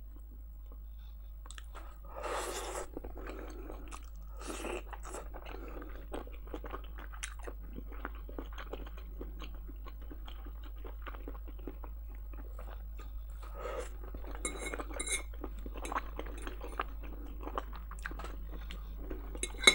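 Close-miked mouth sounds of a person chewing food, with soft crunching and wet smacking, and a few light clicks of a fork on a plate.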